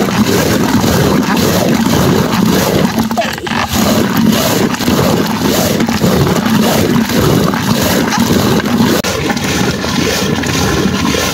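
A flock of sheep or goats bleating together, many overlapping calls in quick succession, over a steady rushing noise.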